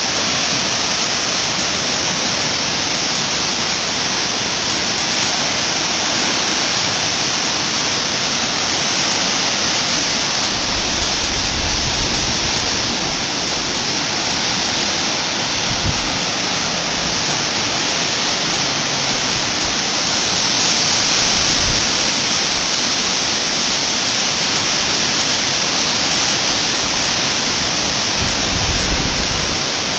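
Floodwater rushing down a wadi in a flash flood: a steady, loud, even roar of fast-moving water, with a few brief low buffets.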